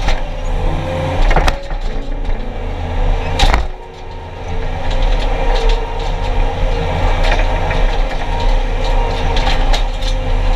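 Skid steer engine running steadily, briefly dropping in level about four seconds in and then picking back up, with two sharp knocks about two seconds apart early on.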